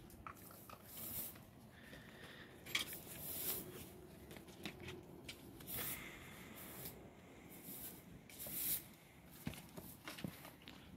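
Faint, irregular soft swishes and rustles of hand laundry: powdered detergent shaken from a plastic bottle onto dark clothes in a plastic tub and a hand working the cloth, along with the strokes of a broom sweeping the concrete.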